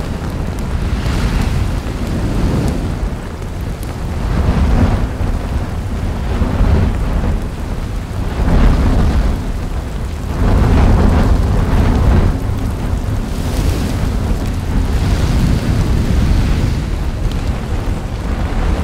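Lava fountaining from an erupting volcanic vent: a deep, continuous rumbling roar that swells in surges every second or two as bursts of lava spatter from the crater.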